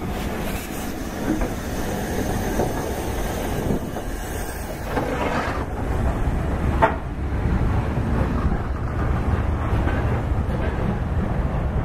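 Steam train hauled by an LMS Jubilee class locomotive pulling out and rolling past as its tender and coaches go by. The wheels rumble and clatter on the rails, with one sharp clank about seven seconds in.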